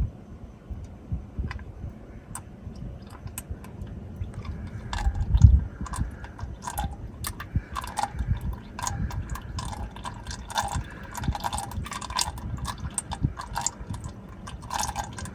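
Engine oil trickling and dripping from the drain plug hole of an M35A2's oil pan into a drain bucket, in small irregular splashes, the flow having slowed. A low thump about five seconds in.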